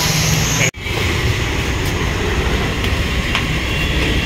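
Steady road traffic noise on a busy street, vehicles running and passing, with a brief drop-out about a second in.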